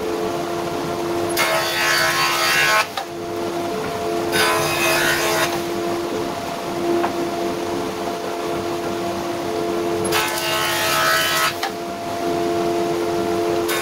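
Floor-standing jointer running with a steady hum while a board is fed over its cutterhead three times; each pass is a loud, harsh cutting noise lasting about a second.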